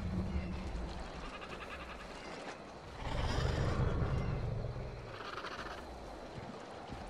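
Dinosaur calls from a film soundtrack: several pitched animal calls one after another, the loudest about three seconds in, over a low rumble.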